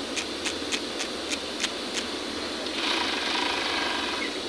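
Industrial overlock (serger) thread-tension knob clicking as it is turned, about three clicks a second, while the looper tension is tightened. Near the end the overlock runs briefly, stitching for about a second and a half.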